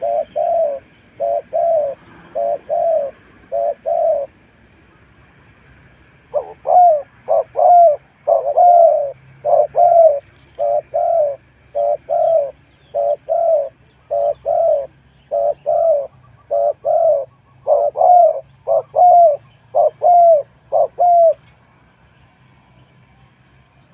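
Spotted dove cooing in series of short, evenly repeated coos: a first run, a pause of about two seconds, then a longer run that stops a couple of seconds before the end.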